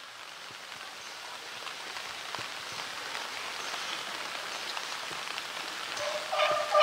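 Rain falling: a steady fine hiss dotted with faint drop ticks, growing gradually louder. Near the end a pitched sound with several tones starts up.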